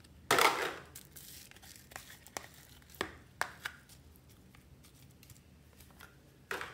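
Purple foam-bead slime (floam) tipped out of a plastic tub and pressed by hand into a bowl of other slimes: a rustling scrape just after the start, then scattered crackles and pops, and another short rustle near the end.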